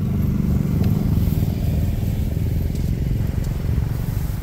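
A motor vehicle's engine running steadily at low speed, a loud low engine sound that eases off near the end.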